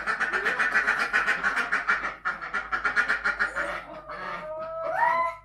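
Poultry in the coop calling in a fast, loud run of quack-like calls for about three and a half seconds, followed by a drawn-out rising call near the end.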